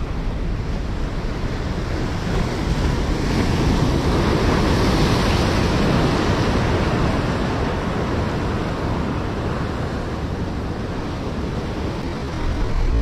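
Sea surf rushing against the shore, a wash of breaking waves that swells a few seconds in and eases off again.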